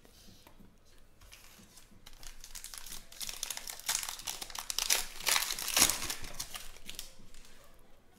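Plastic wrapper of a trading card pack being torn open and crinkled by hand: a run of crackling rips that starts a couple of seconds in, grows loudest in the middle and dies down near the end.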